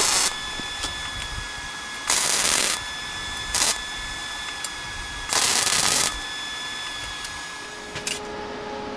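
Flux-core wire-feed welder arc crackling in four short bursts, each under a second long, with pauses between: tack welds joining steel horseshoes.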